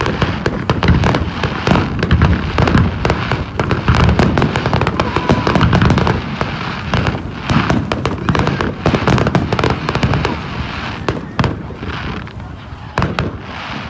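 Fireworks display: a dense barrage of bangs and crackles from bursting aerial shells and burning ground fountains, heaviest in the first half and thinning out toward the end.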